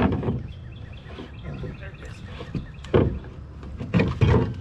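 A wooden slatted catfish trap being hauled up against the side of an aluminum johnboat: dull knocks and bumps of wood against the metal hull, one at the start, one about three seconds in and two close together near the end.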